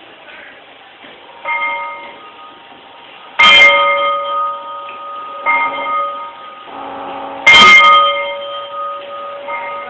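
Sound-equipped HO-scale model locomotive sounding a loud chord of several steady notes in a series of separate blasts, the two loudest and longest starting about three and a half and seven and a half seconds in.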